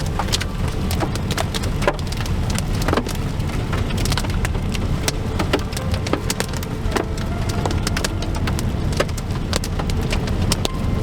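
Heavy storm rain pelting a vehicle: many sharp, irregular hits over a steady low rumble.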